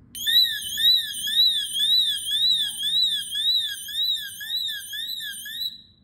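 Tuya Wi-Fi door sensor's built-in alarm sounding a loud warbling siren, its pitch sweeping up and down about twice a second. It is set off by the magnet being pulled away from the sensor body, the sign of a door-open alarm. It cuts off suddenly near the end when the magnet is put back.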